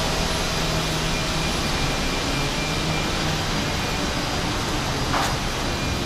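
Steady drone of construction-site machinery: an even hiss with a low engine hum running through it, and a short hiss about five seconds in.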